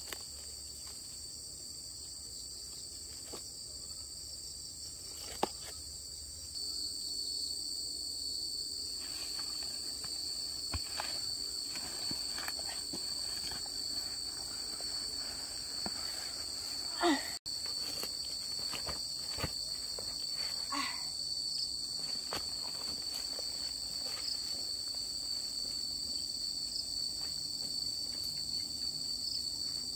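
Insects chirring in a steady, high-pitched chorus, with scattered soft knocks and rustles. A short, louder knock comes a little past halfway.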